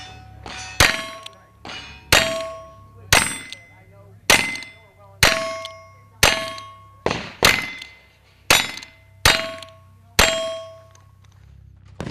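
Ten shots from Ruger Single Six .22 Long Rifle revolvers, about one a second. Each is followed by the clear ring of a steel plate target being hit.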